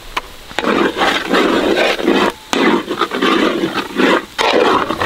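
A long metal ladle stirring thick semolina kesari with jackfruit pieces in a large metal pot, scraping in loud repeated strokes with brief pauses.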